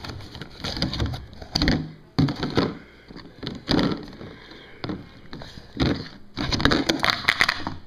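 Irregular knocks, taps and thumps, with clusters of clattering, from things being handled and moved about and from the handheld camera being carried.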